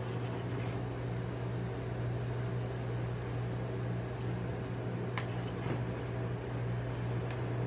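Steady low hum of a rolled-ice-cream machine's refrigerated cold plate, with a few faint scrapes of a metal spatula rolling ice cream across the frozen steel pan, most clearly about five seconds in.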